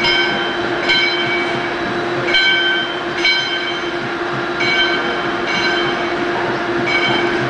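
Steam locomotive hauling its coaches slowly along a curve into a station. A steady hum runs throughout, with a high metallic ringing that sounds briefly about once a second.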